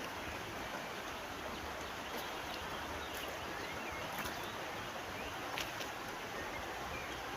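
Steady rushing of flowing river water, with a few brief faint clicks over it.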